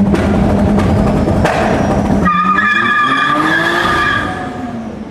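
Toyota Supra MK4 straight-six engine held at high revs with crackling, then about two seconds in the engine note drops away under a high-pitched squeal that lasts about two seconds and fades.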